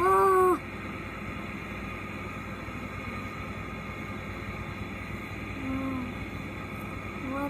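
A child's voice giving a short, loud held note right at the start, and a quieter, slightly falling one about six seconds in, with steady hiss between.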